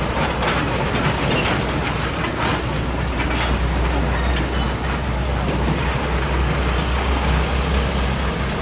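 Heavy diesel container trucks passing at close range: a deep, steady engine rumble with tyre and road noise.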